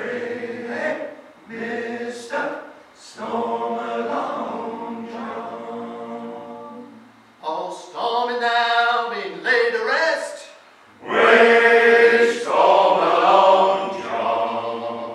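Male a cappella shanty choir singing unaccompanied in harmony, in phrases with held notes and short breaks between them; the last phrase, near the end, is the loudest.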